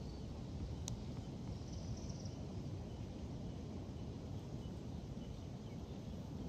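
Steady low outdoor rumble, with one sharp click about a second in and faint high chirps.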